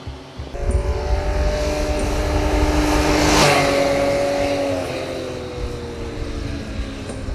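Multi-cylinder motorcycle engine passing at speed. Its note swells to a peak about three and a half seconds in, then eases off with the pitch sagging slightly as it goes by.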